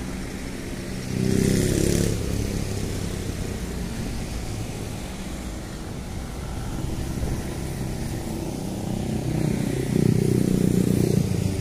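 Motorcycles passing on the road, their engines running. One goes by loudly about a second in and another near the end, with a steady traffic hum between.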